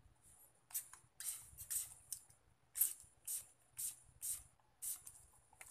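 Several short hissing squirts of a spray bottle, about eight in all, loading alcohol fuel into a homemade marble gun's chamber before firing.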